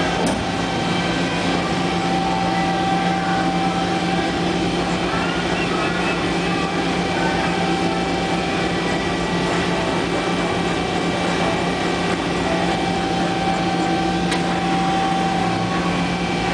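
Nisshinbo HTP-1000 CNC turret punch press running a dry cycle with no tooling installed: a steady machine hum with a constant tone and no punch strikes, and a sharp click near the start and again near the end.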